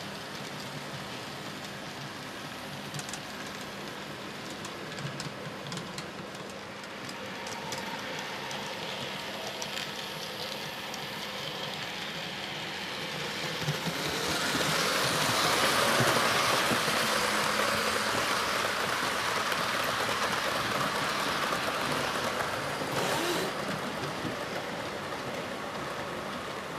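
BEMO narrow-gauge model trains running on the layout's track: a steady hissing rattle of small wheels on rails with faint clicks. It grows louder about halfway through as a train passes close by, then eases off near the end.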